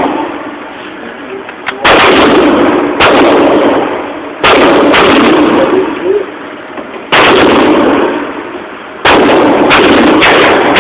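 Rifle shots on a shooting range: about eight sharp reports, each followed by a long, loud echoing tail. Several come only about half a second apart, so more than one gun is firing.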